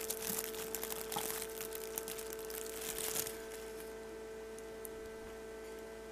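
Crinkling and rustling of plastic as a peacock egg is handled and turned on an egg candler, stopping about three seconds in. A steady electrical hum runs underneath.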